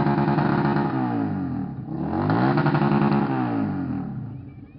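Motorcycle with a straight-through exhaust revved hard twice. It is held at high revs, drops back, then is revved and held again before the revs fall away and die down near the end.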